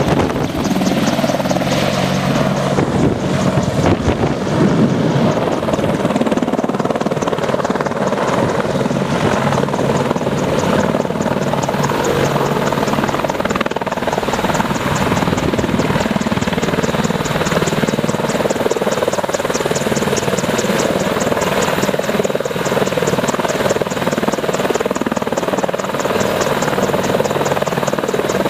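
AH-64E Apache attack helicopter hovering low, its main and tail rotors and twin turboshaft engines running loud and steady.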